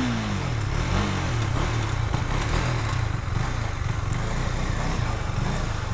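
Motorcycle engine running at low revs. Its pitch falls right at the start as the bike slows, with a brief rise about a second in, then it settles into a steady low drone.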